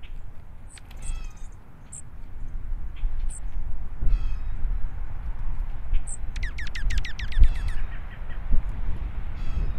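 Dark-eyed juncos calling: scattered thin, high chip notes, then about six and a half seconds in a rapid run of quick down-slurred notes, with a shorter run near the end. Underneath runs a low rumble with a few dull thumps.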